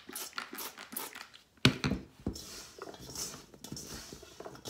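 Oiled potato wedges handled in a stainless steel mixing bowl: short scratchy rustles, a sharp clunk with a brief ring about one and a half seconds in as the steel bowl is set down, then hands tossing the potatoes against the steel.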